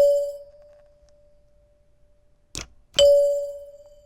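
Electric door chime's metal tone bar, loaded with springs laid on it, struck twice about three seconds apart; each strike rings one clear note that dies away over about a second. A short click comes just before the second strike.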